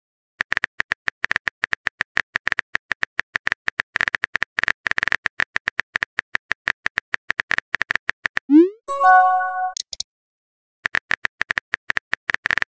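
Rapid keyboard tap clicks from a texting app as a message is typed letter by letter. About eight and a half seconds in they stop for a short rising bloop and a chime as the message sends, and the tapping starts again about two seconds later.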